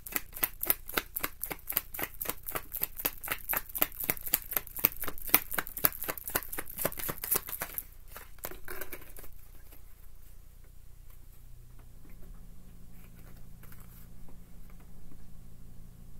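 Tarot deck being shuffled by hand: a fast, even run of soft card slaps, about five or six a second, that stops about eight seconds in. After that there is only faint handling of the cards.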